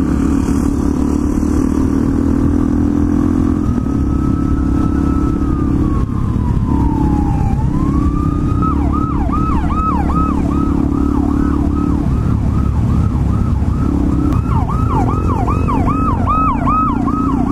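Police siren sounding a slow wail, falling and then rising from about four seconds in, then switching to a fast yelp of about three sweeps a second. Under it runs the steady drone of a Suzuki DR-Z400SM's single-cylinder engine.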